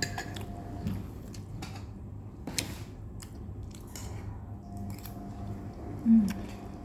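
A person chewing food, with scattered small clicks and smacks from the mouth and utensils over a steady low hum. A brief vocal sound comes about six seconds in.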